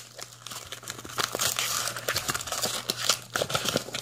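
White protective wrapping being pulled off trading cards and crumpled by hand, crinkling and rustling in an irregular run of crackles that is densest in the middle. A steady low hum sits underneath.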